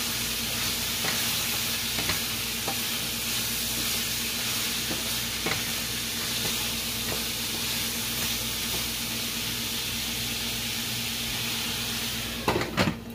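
Chopped carrots, bell pepper and celery sizzling in olive oil in a stainless steel pan, stirred with a wooden spatula that scrapes and taps now and then. Near the end a few louder clatters as a glass lid is set on the pan.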